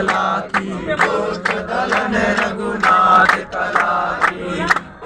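A group of men singing a Hindu devotional bhajan together in unison, with rhythmic hand clapping about twice a second.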